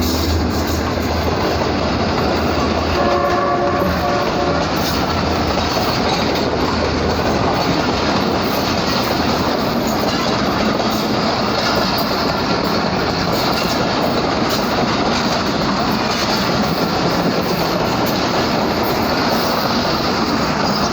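Express passenger train running through a station at speed: a steady rumble of coaches with wheels clacking over the rail joints. A locomotive horn sounds briefly about three seconds in.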